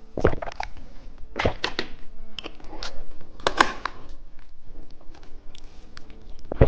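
Close-miked candy eating and handling: irregular clicks, taps and short crackles of sweets and their packaging.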